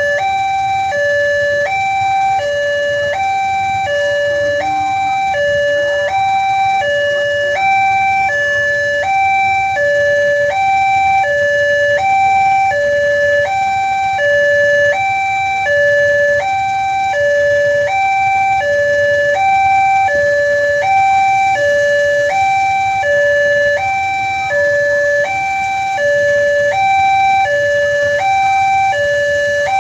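Electronic warning alarm of a railway level crossing, sounding a steady two-tone signal that alternates between a lower and a higher pitch, about one high-low cycle every second and a half. It warns that a train is approaching and the barriers are down.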